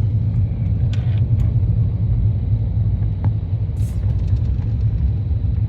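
Boat motor running steadily while underway, a constant low rumble with a few faint clicks over it.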